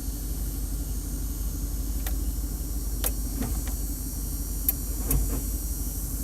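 1998 GMC Yukon's engine idling steadily, heard from inside the cab, with a handful of short sharp clicks in the middle of the stretch while the 4x4 system is being switched.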